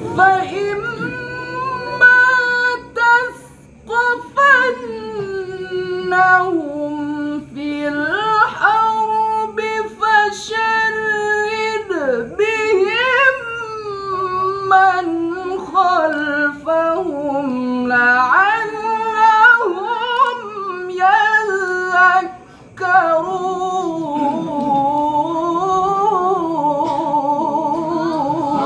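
A single high voice reciting the Quran in melodic tilawah style, holding long ornamented notes that bend and waver in pitch, with two short pauses for breath.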